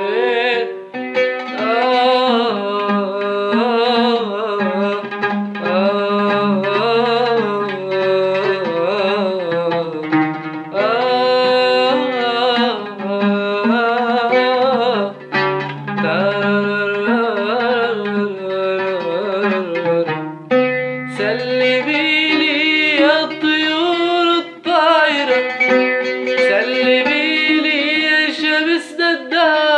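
Music: a passage of an Arabic song with no sung words, its melody gliding and ornamented.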